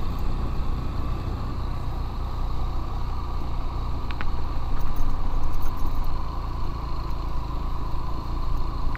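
Motorcycle engine running steadily while the bike is ridden, a continuous low engine drone with no breaks.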